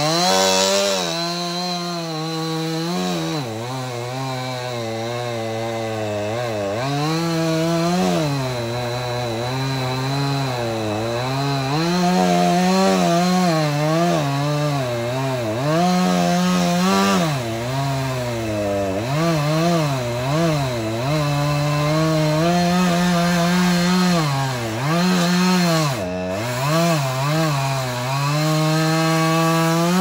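Two-stroke chainsaw running and cutting into a pine trunk, its engine speed rising and falling over and over as the throttle is worked, with several brief dips toward idle.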